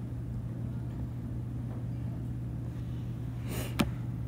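Steady low hum of room tone. Near the end, a brief breath-like rush of noise, then a single sharp click.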